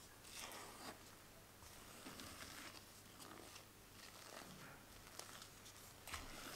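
Silicone spatula folding and pressing macaron batter against the sides of a glass bowl, soft wet swishes and scrapes about once a second: the macaronage stage, meringue being folded into the almond flour and sugar.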